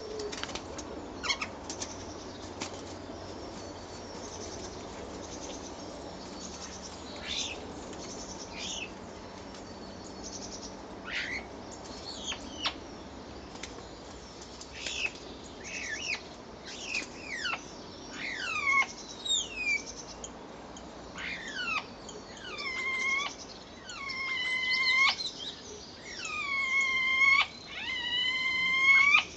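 European starlings calling: scattered quick falling whistles at first, coming closer together, then in the last several seconds a run of louder, drawn-out calls that sweep down and level off, about one a second.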